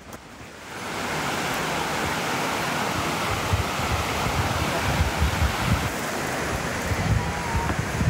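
Steady rush of a waterfall and river water pouring over rocks and a low weir, coming in suddenly about a second in.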